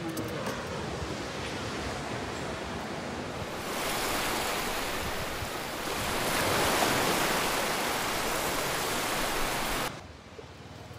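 Ocean surf washing on the beach: a steady rushing noise that swells about four seconds in and cuts off abruptly near the end.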